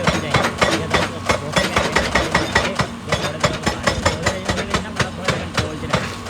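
Excavator-mounted hydraulic rock breaker hammering rock in a rapid, steady train of blows, with the machine's diesel engine running underneath.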